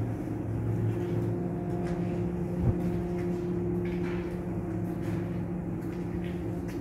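Steady low hum of metal-workshop machinery, with one sharp knock about two and a half seconds in.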